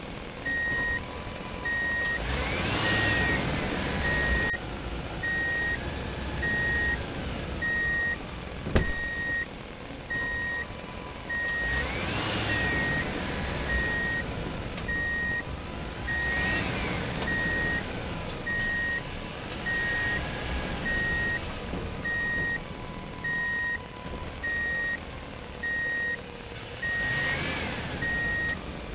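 Electronic vehicle sound effects: a steady high reversing beep about twice a second, a lower steady tone that comes and goes, and a rising-and-falling swooping tone every few seconds. A single sharp knock about a third of the way through.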